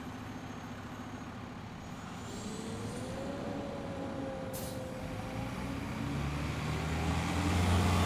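Street traffic noise, with a heavy vehicle's low engine rumble that grows steadily louder over the last few seconds. A short high hiss about four and a half seconds in.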